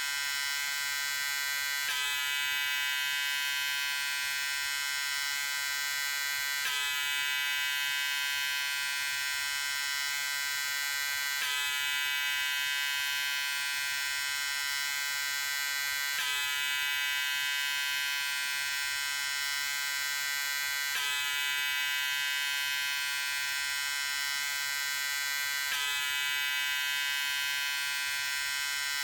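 Electric shaver running with a steady, high-pitched buzz. It has a small hitch about every five seconds.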